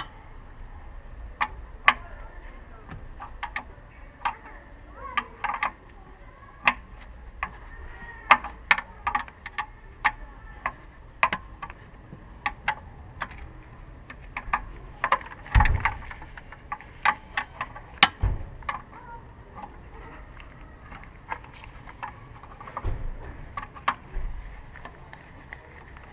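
Irregular sharp metallic clicks and clinks of hand tools and bolts being worked on an engine, with two heavier knocks a little past the middle.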